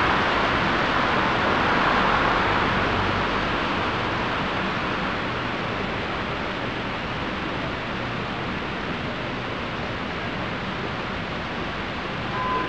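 Street traffic noise: a steady hiss that is louder in the first few seconds and then settles, with a brief high tone near the end.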